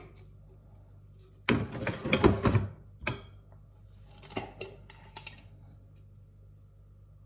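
Kitchenware being handled: a short clatter of clinks and knocks about a second and a half in, then a few single lighter knocks.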